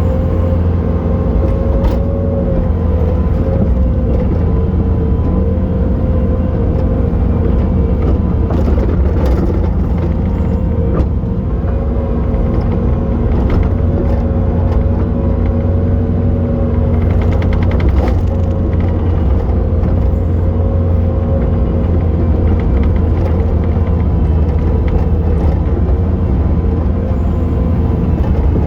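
Bobcat T870 track loader's diesel engine running steadily under work, with a steady whine over the low rumble and scattered knocks and clatters.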